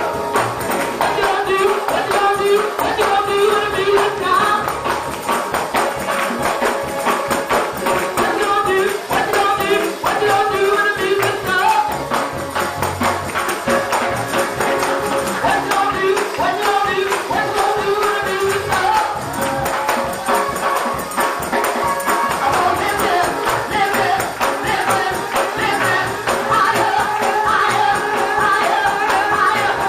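Gospel praise music in a church: a tambourine shaken and struck in a steady rhythm over held chords, with voices singing.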